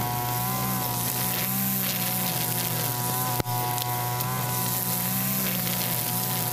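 Mitsubishi brush cutter's engine running steadily at working speed, its nylon trimmer line spinning through grass, with a single sharp click about halfway through.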